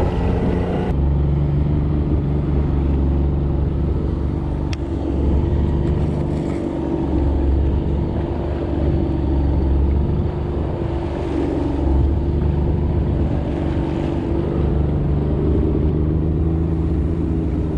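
Fishing boat's engine running steadily under way, a low, even drone.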